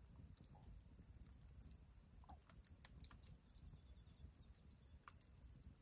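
Faint crackling of a small twig-and-stick campfire: scattered sharp pops and snaps over a low rumble.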